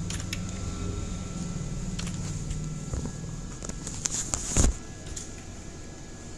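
Scattered computer keyboard keystrokes, a few isolated clicks with the loudest about four and a half seconds in, over a steady low background hum.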